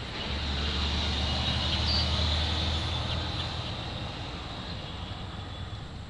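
A road vehicle passing: a low engine drone and road noise swell to a peak about two seconds in, then fade away.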